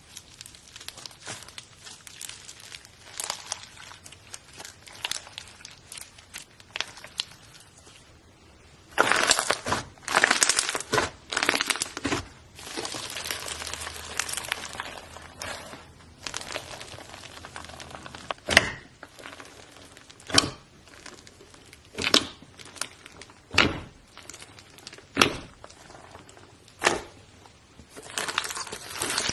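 Hands squishing and stretching slime, making crinkling and crackling sounds. In the second half there is a sharp pop or snap about every second and a half.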